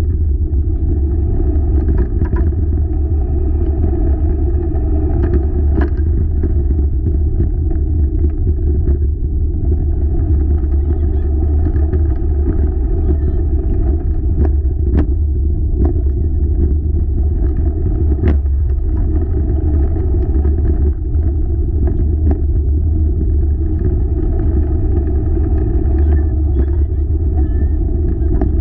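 A four-dog wheeled rig rolling fast along a trail: a steady, loud low rumble with scattered sharp clicks and rattles.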